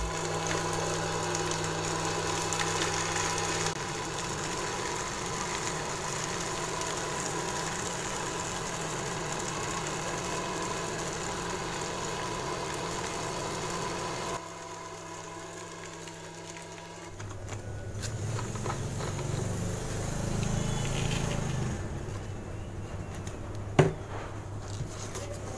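Small DC motor of a homemade plastic-bottle vacuum cleaner running with a steady whir, its tone shifting a few times as it runs, with a sharp click near the end.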